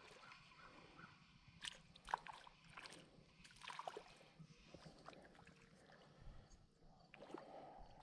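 Faint, scattered splashes and sloshes of creek water as a small hooked smallmouth bass is reeled in on light tackle.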